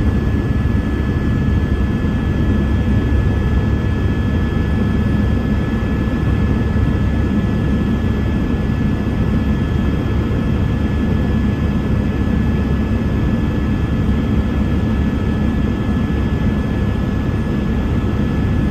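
Helicopter in flight: steady engine and rotor noise, a low rumble with a thin, constant high whine above it.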